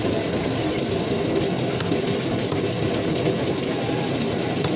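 A steady, loud mechanical rumble with a clattering texture that runs without a break.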